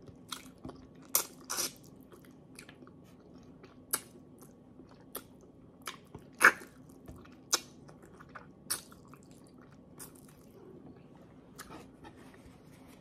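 Close-miked eating sounds: wet lip smacks, chewing and sucking on a braised pompano fish head eaten by hand. They come as irregular sharp smacks every second or so, the loudest about six and a half seconds in.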